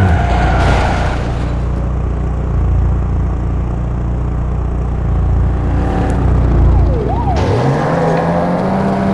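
A vehicle engine running under a deep, steady rumble. About seven seconds in, the rumble drops away and the engine's pitch rises steadily as it revs up.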